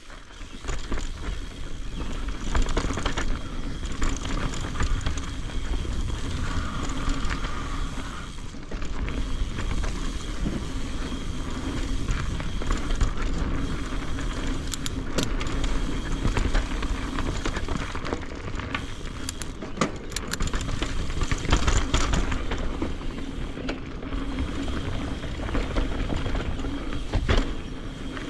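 Mountain bike riding fast down a rough dirt trail, heard from a camera mounted on the bike or rider. Tyres rumble over rocks and roots while the chain and frame clatter with constant knocks, and wind buffets the microphone.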